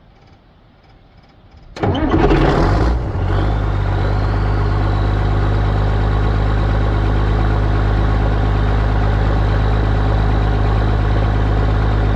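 Straight-piped combine diesel engine cold-started: after nearly two seconds of quiet it catches at once, then settles within about a second into a steady idle.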